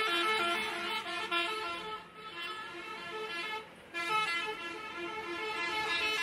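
A vehicle horn sounding a quick run of short notes of changing pitch, like a tune, broken by brief pauses about two seconds and about three and a half seconds in.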